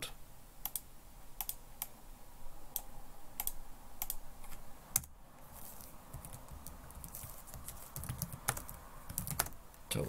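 Keystrokes on a computer keyboard: scattered single key clicks, then a quicker run of typing near the end.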